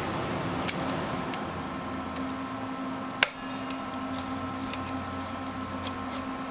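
A few light metallic clicks and clinks, the sharpest a little past the middle, as a wrench works a nut welded onto a broken-off bolt back and forth to free it, over a steady hum.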